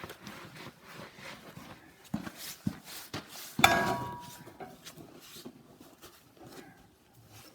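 Scattered knocks and clatter of metal being handled, with one sharp clank about three and a half seconds in that rings briefly.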